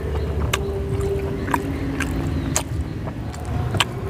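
Eating by hand off a steel plate: sharp wet clicks about once a second as rice and mutton are mixed and eaten, over a steady low rumble.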